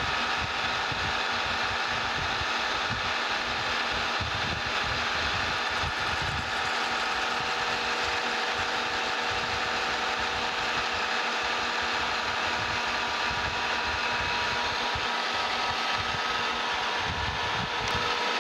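Metal lathe running steadily while a cutting tool faces the end of a 5/8-inch cold-rolled steel bar: an even whirr from the spindle and gearing with a few faint steady tones.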